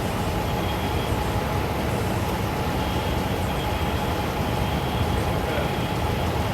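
Steady low rumble of road and engine noise inside a moving police patrol car.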